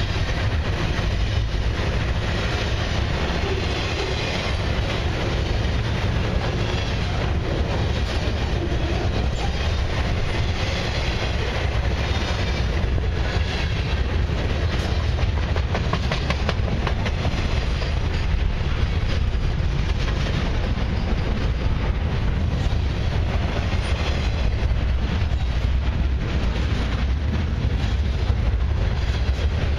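Freight train cars loaded with highway trailers rolling past close by at speed: a steady rumble of steel wheels on rail, with clickety-clack over the rail joints.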